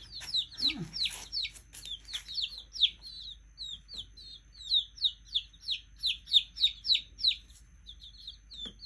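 A group of young chicks peeping: a steady run of short, high chirps, each sliding downward in pitch, about three or four a second from several chicks at once, thinning out near the end.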